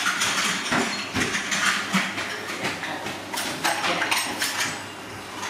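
A plastic mesh bag crinkling and rustling in short, irregular bursts as a live snake is pulled up out of it and writhes against it.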